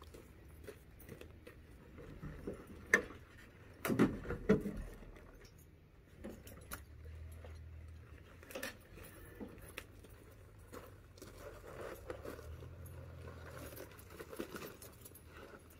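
Light metallic jingling and clicking with scattered knocks; the loudest are a sharp knock about three seconds in and a cluster of thumps about a second later.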